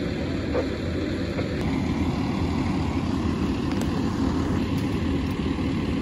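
Fire engine's diesel engine idling, a steady low rumble.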